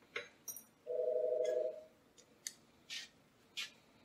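Small metallic clicks and taps of socket head cap screws and a hex key being fitted into the front cover of a Bridgeport mill head, about five in all. About a second in there is a steady buzzing tone lasting about a second.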